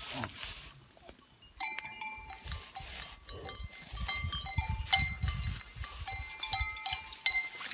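Metal bells on grazing cattle clanking irregularly, each stroke ringing at the same few pitches, starting after about a second and a half of quiet, over rustling grass and low knocks.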